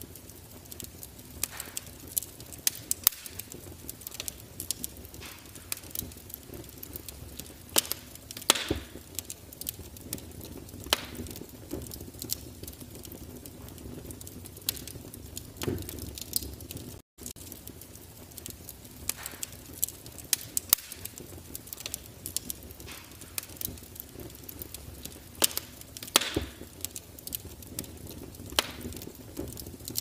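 Wood fire burning in a closed fireplace insert, crackling with irregular sharp pops over a low steady rush, a few pops much louder than the rest.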